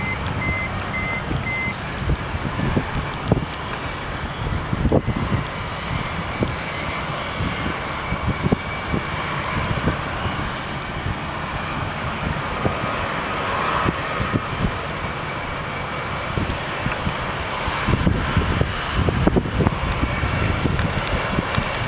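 Boeing 787-8 jet engines idling on the taxiway, a steady whine over a low rumble, with strong gusty wind buffeting the microphone.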